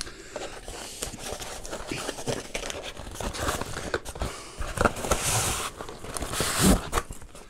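A cardboard shipping box being opened by hand: flaps pulled open and packaging rustling and crinkling. The rustling gets louder twice, about five and six and a half seconds in, as a wrapped gift bag is pulled out.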